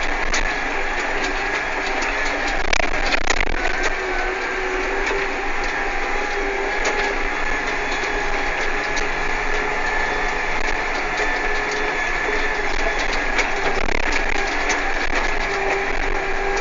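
Tractor engine running steadily while driving, heard from inside the cab, with frequent light clicks and rattles.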